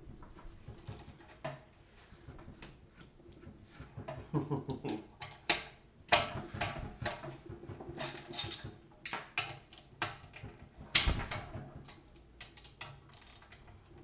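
Hand socket wrench clicking and metal clinking on the crankcase-cover bolts of a Honda-clone single-cylinder engine as they are loosened, in irregular bursts, with one sharp knock about eleven seconds in.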